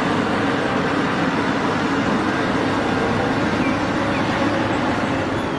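Cat 6015B hydraulic mining excavator's engine running steadily with a low hum while it swings and dumps a bucket of sand into a dump truck.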